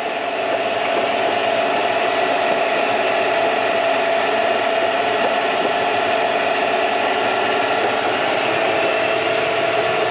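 Farm tractor engine running steadily, an even hum with a constant whine over it.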